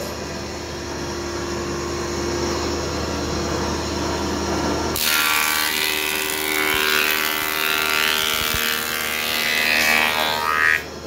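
Multipurpose woodworking machine running steadily as a planer-thicknesser. From about five seconds in, a pallet board feeds through the cutter head, giving a louder, rougher planing noise that stops just before the end.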